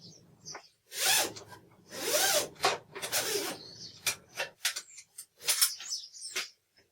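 Steel coil liner of a MIG welder torch lead being worked out of the cable: rough metal scraping in several half-second strokes, with sharp clicks and knocks between them.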